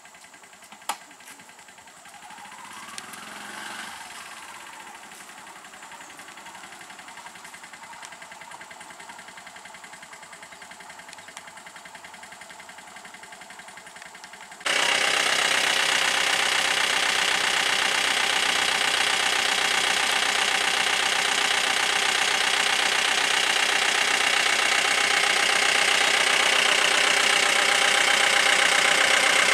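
Motor vehicle engine idling steadily. It cuts in abruptly and loud about halfway through, after a faint stretch that holds a single click near the start.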